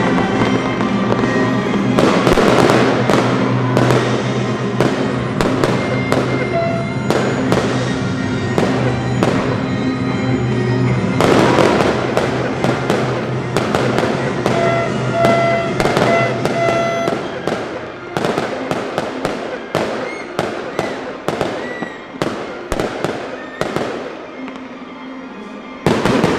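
Fireworks display: a rapid string of bangs from shells bursting, over music. The music fades out about two-thirds of the way through, leaving separate bangs that ring on briefly, with a loud cluster of bangs near the end.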